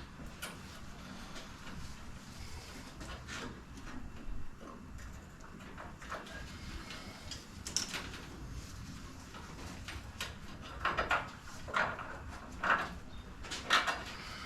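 Hand tools and metal engine parts being handled: scattered clicks and knocks, with a few louder scraping bursts near the end.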